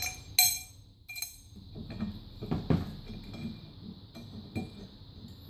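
Small metal clinks and light knocks of an 8mm Allen key bolt and Allen key being handled and fitted into a spin bike's crank arm. There are two sharper clinks early, then scattered small ticks and a few dull knocks.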